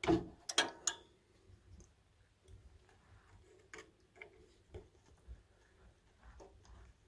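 Small clicks and ticks of pliers working the spade connectors off the fan motor's terminals: a few sharp clicks in the first second, then faint scattered ticks.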